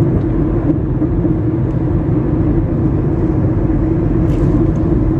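Steady engine and road rumble heard from inside a moving car's cabin, with a constant low hum.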